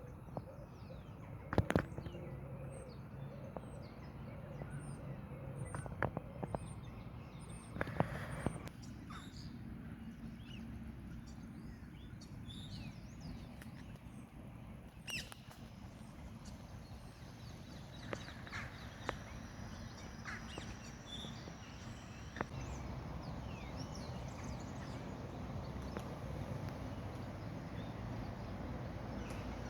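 Birds calling and chirping in short scattered notes, with a few sharp knocks over a steady low rumble.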